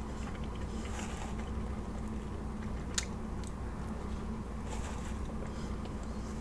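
Close-up chewing and biting of food, soft wet mouth sounds with a few sharp clicks, over a steady low hum.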